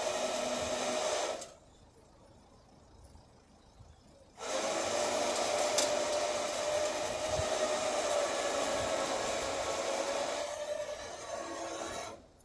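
Flatbed recovery truck's hydraulics whining steadily with a hiss as the tilt-and-slide bed carrying a car is worked. The whine stops after about a second and a half, starts again about three seconds later, and cuts off just before the end.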